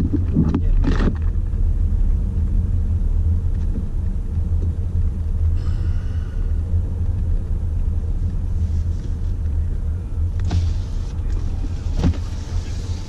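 Steady low rumble of a motor vehicle, with a few faint knocks and clicks.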